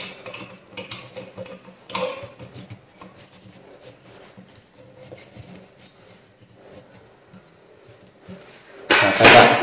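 A felt polishing wheel is pushed and twisted onto the metal spindle shaft of a gem grinding machine, with faint rubbing and scraping and a few small clicks from the wheel, hub and washers. The motor is not running.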